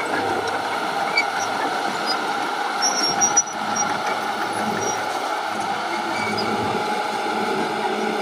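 Heavy earthmoving machinery running steadily, with a few brief high squeaks about three seconds in.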